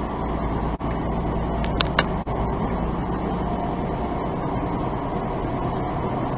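Steady engine and road noise inside a semi truck's cab while it drives on a freeway, with a few brief high chirps about two seconds in.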